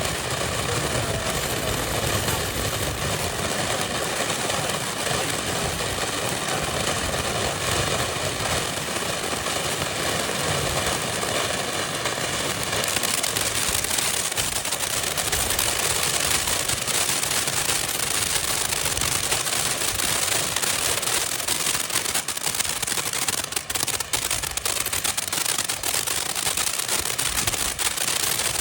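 Consumer ground fountain firework spraying with a steady hiss and crackle. About halfway through the hiss turns brighter and the crackle grows much denser.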